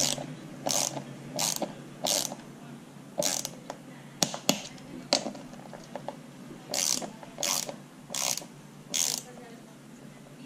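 Ratcheting torque wrench tightening the cleat bolts on a road bike shoe. It gives short ratchet strokes about every 0.7 s, two runs of them with a gap in the middle.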